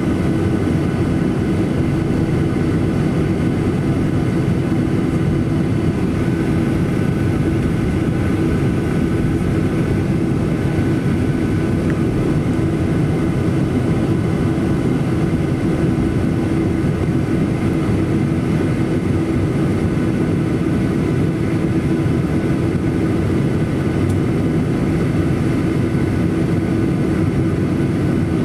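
Cabin noise of a Boeing 737-800 taxiing after landing: its CFM56-7B engines running at idle, a steady rumble with a constant hum that does not change.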